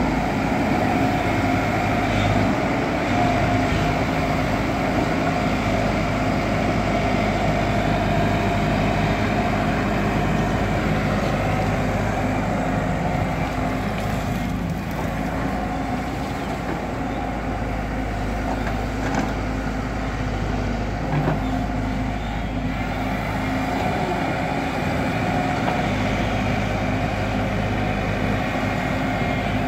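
Diesel engine of a JCB excavator running steadily as the machine works, its pitch shifting slightly now and then, with a few faint knocks around the middle.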